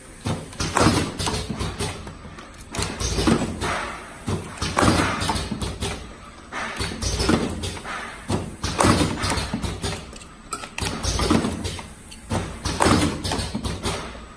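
Automatic rotary cartoning machine cycling: its turntable indexes and its air-driven folding station strokes, giving a sliding, knocking sound that repeats about every two seconds.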